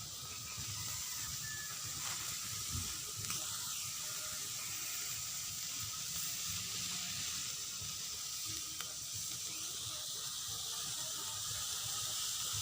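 Food sizzling in a hot pan: a steady frying hiss, with a few faint clicks.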